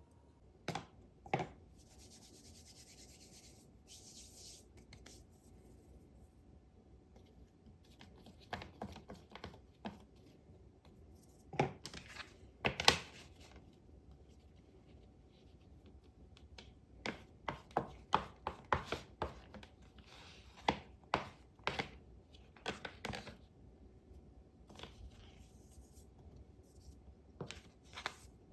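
Kitchen utensils tapping and scraping in irregular clusters, with a short soft hiss a few seconds in.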